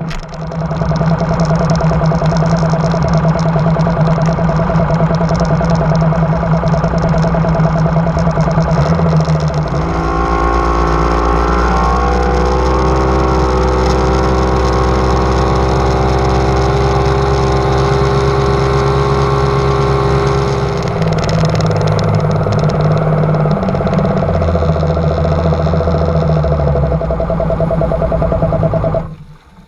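Bass boat's outboard motor running at speed, a steady loud engine drone with wind and water rush. The engine note climbs about ten seconds in and holds higher, shifts back lower about two-thirds of the way through, then cuts off suddenly near the end.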